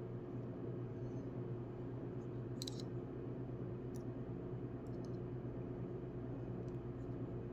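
A few short, sharp clicks of small driver bits and tools being handled, spaced a second or more apart, the strongest about two and a half seconds in, over a steady low hum.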